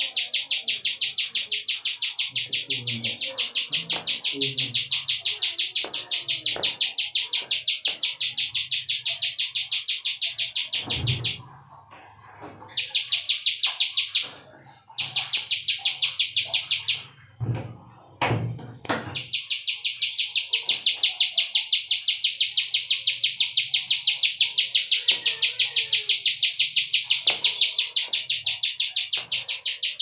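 Plain prinia (ciblek sawah) giving its fast, even 'klik' call, a long run of sharp ticking notes that breaks off twice midway before running on again. A few low thumps fall in the pauses.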